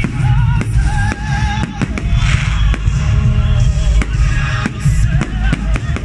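Aerial fireworks shells bursting in repeated sharp bangs, with a spray of crackling about two seconds in, over loud music.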